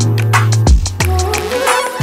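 Background music with a beat: sustained deep bass notes and drum hits.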